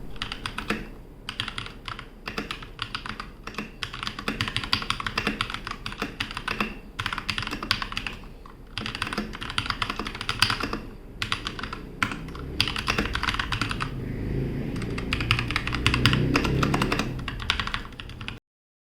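Typing on a Keychron K2 V2 mechanical keyboard with brown switches: quick, irregular key clacks, sounding deeper and fuller in the last few seconds. The typing stops abruptly near the end.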